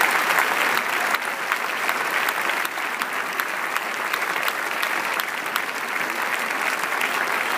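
A large theatre audience applauding: dense, steady clapping from many hands.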